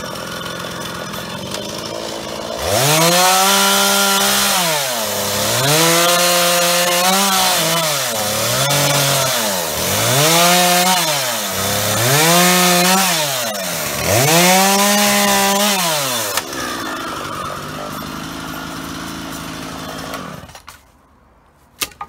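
Petrol chainsaw idling, then revved up about six times for roughly two seconds each, its pitch climbing, holding and sagging as it cuts through logs. It drops back to idle, cuts out near the end, and a sharp click follows.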